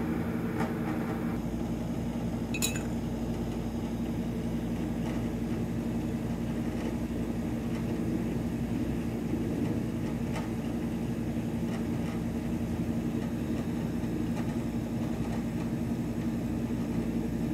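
A few light clinks of a drinking glass, the clearest a bright ringing clink a little under three seconds in, as a vitamin C drink is being prepared, over a steady low hum.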